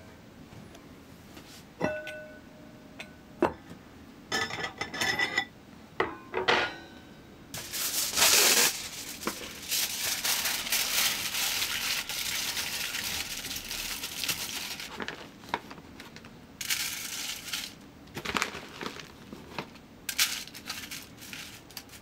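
Clinks and knocks of a smoker pot and its lid being handled, some with a brief ringing. Then aluminium foil is torn and crumpled as it is pressed into the pot's bottom, a loud crackling rustle lasting several seconds, followed by shorter rustling bursts as smoking wood chips are spread onto the foil.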